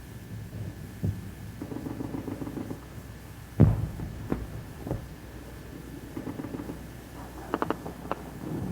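Scattered distant gunfire: single low cracks and thuds, the loudest about three and a half seconds in, then a quick burst of several shots near the end.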